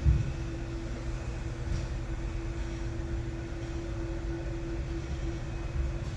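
Band saw running free with a steady low hum and a steady tone.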